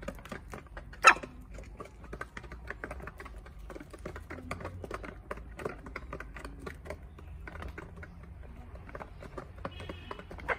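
Chickens pecking feed at a plastic feeder: rapid, irregular beak taps on plastic and dirt, with one sharp, louder knock about a second in and a short high chirp near the end.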